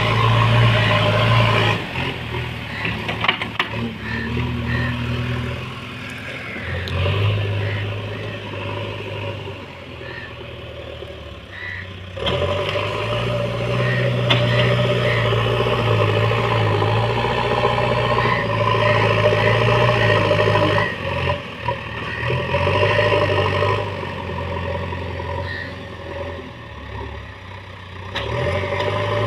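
JCB backhoe loader's diesel engine running, its level and pitch rising and falling repeatedly as the machine works under changing load.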